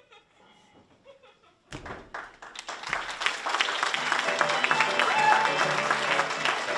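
Faint voices at first; about two seconds in, audience applause breaks out and music starts playing under it.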